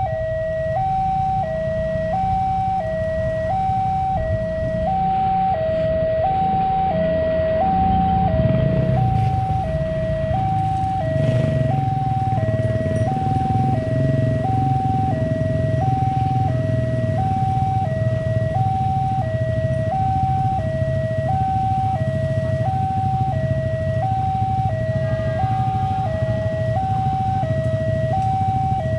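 Railway level-crossing warning alarm sounding a steady electronic two-tone, alternating high and low about once a second. A low rumble runs underneath it and grows louder in the middle.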